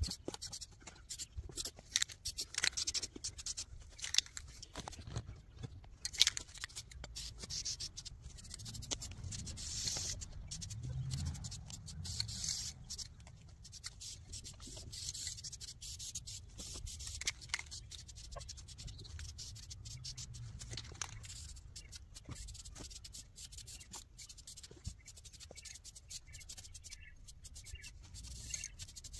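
Aerosol spray-paint can hissing in short bursts, among irregular sharp clicks and scratchy rustling.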